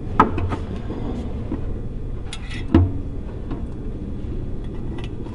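Metal clicks and clinks of exhaust springs being stretched with a spring hook and snapped onto the header's spring tabs, the sharpest about a fifth of a second in and just before three seconds in, over a steady low hum.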